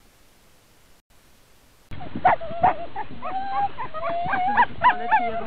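Faint hiss, then from about two seconds in a team of harnessed sled huskies whining and yipping, several dogs at once. One steady, wavering whine runs under short, sharp yelps.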